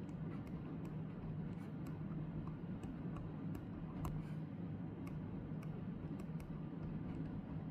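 Scattered light clicks and taps of eating utensils on dishes over a steady low hum.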